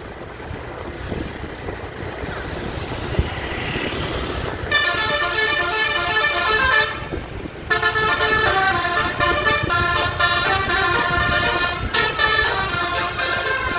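A bus's multi-trumpet telolet basuri air horn, with 12 trumpets, playing a tune in quick note steps. It starts about a third of the way in, breaks off briefly, and then plays on. Before the horn starts there is only a low vehicle rumble.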